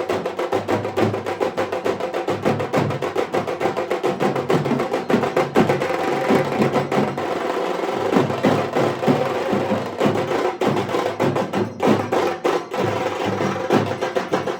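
Dhak drums beaten with sticks in a fast, dense rhythm of rapid strokes, with a stretch of near-continuous rolling a little past the middle.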